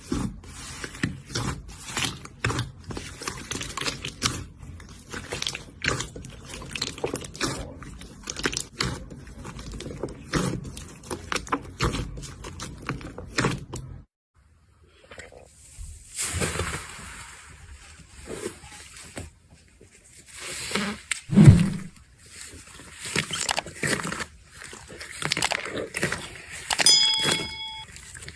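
Slime being pressed and squished by hand: a dense run of fast crackling clicks, then after a sudden cut, slower squelches with one loud thump and a brief high squeak near the end.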